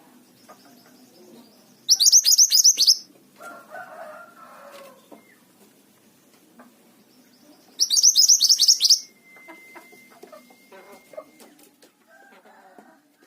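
A mantenan gunung songbird singing: two loud bursts of rapid, high, falling notes, each about a second long and some six seconds apart. Quieter, lower calls and a short held whistle come in between.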